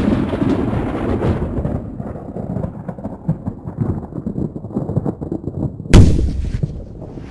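Thunder sound effect: a boom that rolls into a low rumble and fades, then a sharp, loud thunderclap about six seconds in, followed by more rumbling.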